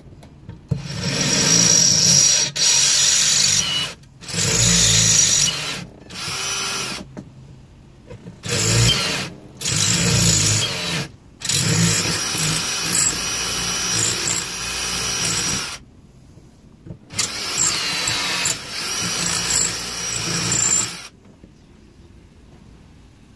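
Handheld cordless drill boring through a metal bracket, run in about seven bursts of one to four seconds, stopping and restarting between them.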